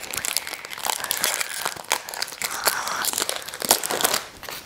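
Foil booster-pack wrapper crinkling and crackling in the hands as the cards are pulled out of it, the crackles thinning out near the end.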